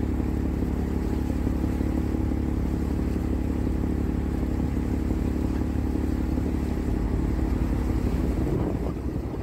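Boat engine running steadily with a low, even hum, heard from aboard the boat.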